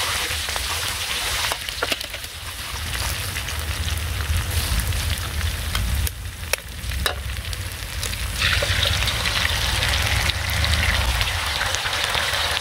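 Chopped garlic and red chillies sizzling in hot oil in a steel wok, stirred with a metal spoon, with a few sharp clicks of the spoon against the pan. The sizzle gets louder past the middle as a cracked egg goes into the hot oil.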